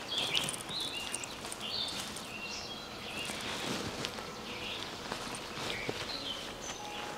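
Birds chirping, with short high notes and brief whistles repeating throughout, over the crackle and rustle of large banana leaves being handled and laid flat.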